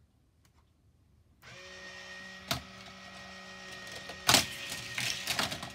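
Battery-powered motor of a Hot Wheels Volcano Escape playset, the motor that drives its lifters, switching on about a second and a half in and running with a steady whine. Sharp plastic clacks and rattles of toy cars and track sound over it, with a single knock about a second after the motor starts and a burst of clatter near the end.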